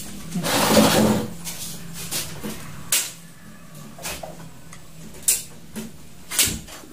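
Kitchen clatter: sharp clicks and knocks of a spoon and dishes, with a loud rush of noise about half a second in and a low hum under the first few seconds.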